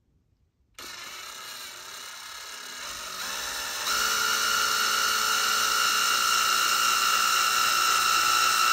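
Cordless drill on low speed driving a long Phillips-head screw into a steel threaded plate. The motor starts with a whine about a second in, steps up in speed and loudness a few times, and runs steadily and louder from about four seconds in.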